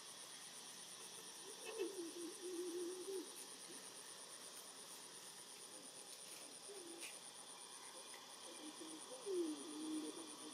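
Outdoor ambience with a steady, evenly pulsing high insect trill over a soft hiss. Twice, a short wavering voice-like call stands out above it: once about two seconds in, and again near the end.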